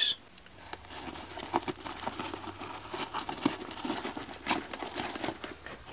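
Handling noise of a plastic zip tie being threaded through a pack's nylon webbing and a flashlight clip: scattered small clicks and a light rustle.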